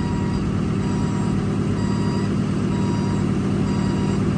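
Steady drone of the truck's 6.7 Cummins diesel running, with the hydraulics lowering the forestry dump body. A faint short beep repeats about once a second.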